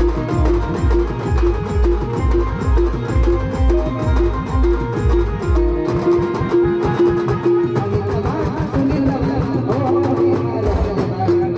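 Adivasi rodali band music: a keyboard plays a repeating melody over a steady heavy drum beat. About halfway through, the heavy beat drops out for a few seconds while the melody and lighter percussion carry on, then the beat comes back near the end.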